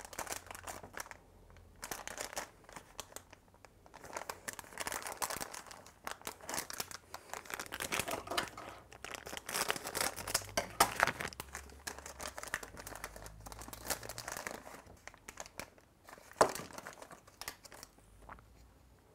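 Plastic blind-bag packet crinkling and tearing as it is opened by hand, with a run of irregular rustles and crackles. There is one sharp, louder crackle late on.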